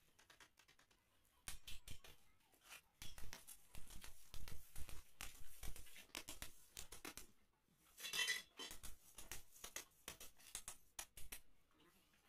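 Rubber-tipped mallet knocking an aluminium frame joint together: a run of irregular sharp knocks and clatter, with a short scraping rustle about eight seconds in.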